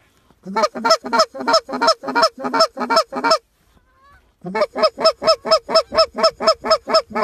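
Canada goose call blown by a hunter in rapid, evenly spaced clucks, about four a second, in two runs broken by a pause of about a second in the middle. Each note is a short honk-like cluck, calling an approaching flock of Canada geese in to the decoys.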